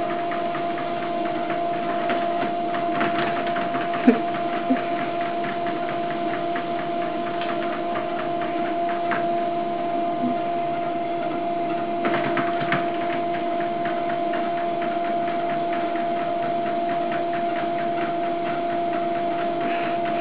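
Electric treadmill motor and belt running steadily with a constant whine. A few brief knocks sound about four seconds in and around twelve seconds.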